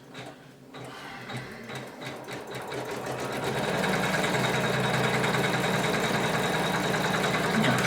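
Janome 500E embroidery machine stitching. It starts softly and picks up over the first few seconds, then runs steadily with a rapid, even stitch rhythm and stops at the very end. It runs smoothly without knocking after an adjustment that cured its intermittent knock.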